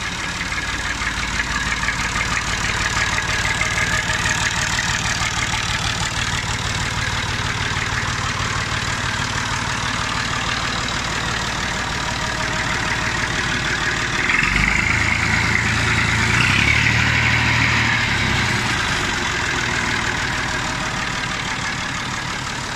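Massey Ferguson 240 tractor's three-cylinder diesel engine idling with a steady clatter. It runs louder and deeper for a few seconds about two-thirds of the way in.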